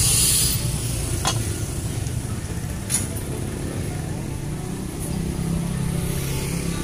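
Steady street-traffic rumble, with a motor vehicle's engine drone swelling about five seconds in. Two sharp clicks, about a second and three seconds in.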